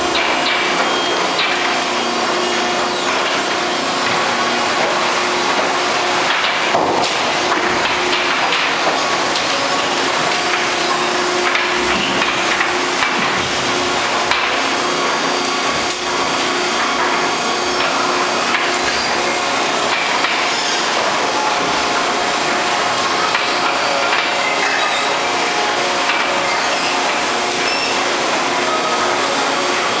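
Selco 2R1275 two-ram baler and its steel feed conveyor running: a loud, steady mechanical clatter with a constant hum underneath, broken by a brief dip about halfway through.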